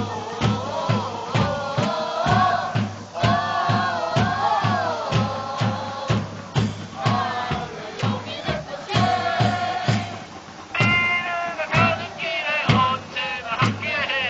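Football supporters singing a chant together in the stands, many voices in unison, over a drum beaten steadily about two and a half times a second.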